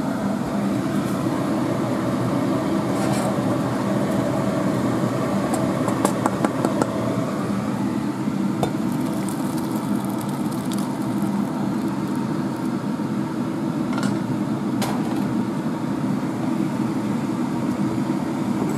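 A steady low hum throughout, with a few clinks and scrapes of a spatula against a stainless-steel saucepan and a glass dish as thick dhal curry is poured out. The clinks come about three seconds in, a short cluster around six to seven seconds, and two more near fourteen to fifteen seconds.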